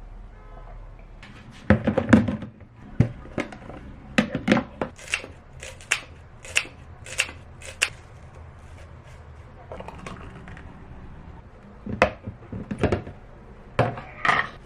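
A run of sharp knocks and clatters from objects being handled, about a dozen in quick succession, then a pause and a few more near the end.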